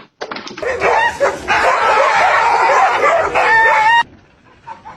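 Dog giving long, wavering vocal cries for about three seconds, loud, ending on a held note that cuts off abruptly.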